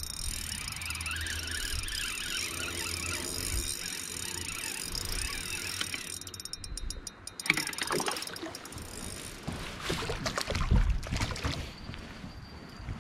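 Spinning reel cranking steadily as a crappie is reeled in. From about seven and a half seconds in, a few seconds of knocks and rustling follow as the fish is brought aboard.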